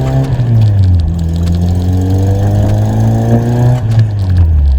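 VW Golf MK2's carbureted 1.8 four-cylinder engine, heard through a newly fitted muffler, accelerating hard through the gears. The pitch drops at a shift just after the start, climbs steadily for about three and a half seconds, then drops again at another shift near the end.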